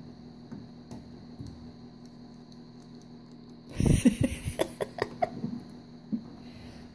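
Faint steady hum with a few light clicks, then about four seconds in a burst of hands rustling and knocking against paper and the tabletop close to the microphone, with some short squeaks, lasting about a second and a half.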